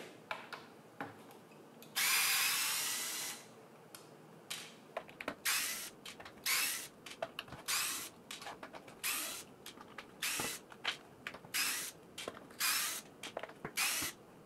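Cordless electric screwdriver backing out small screws from a plastic battery enclosure. It runs once for about a second and a half near the start, then in a string of short bursts, roughly one or two a second.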